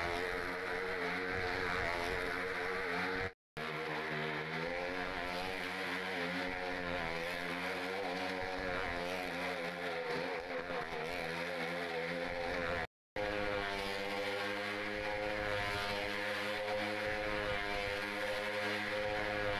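Stunt motorcycle engine running at steady high revs as it circles the wooden wall of a well-of-death drum, its pitch wavering slightly, with two short breaks in the sound.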